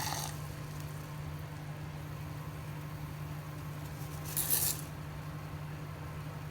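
A steady low machine hum, like a kitchen appliance running, with a short rattle at the start and a brief, louder hissing rattle about four and a half seconds in.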